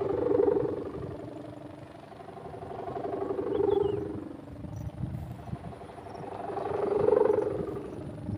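Humming bow (sendaren) on a large pegon kite droning: a pitched moaning tone that swells and fades three times, about every three and a half seconds. Low wind buffeting on the microphone runs underneath.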